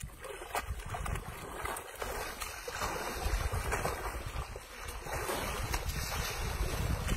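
Wind buffeting the microphone in gusts, over wet sloshing and squelching of mud and water as baby elephants roll in a muddy pond.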